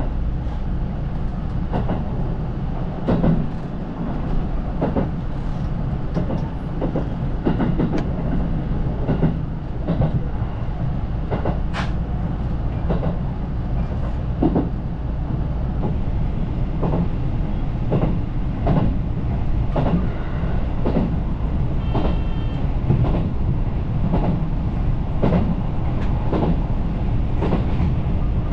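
Electric passenger train running along the line, heard from inside the train: a steady low rumble with sharp clacks of the wheels over rail joints, roughly once a second.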